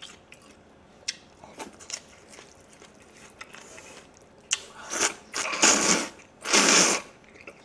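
A few soft clicks, then two long, loud slurps of jjajangmyeon noodles being sucked into the mouth in the second half.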